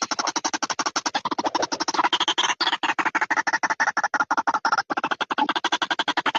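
White-breasted waterhen (ruak-ruak) calling: a rapid, harsh run of even pulses, about ten a second, used as a lure call to draw the birds in.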